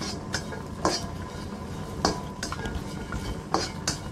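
Spatula scraping and knocking against a nonstick wok while stir-frying strips of Chinese sausage dry, with no oil. There are about half a dozen sharp clacks at irregular spacing over a low steady background.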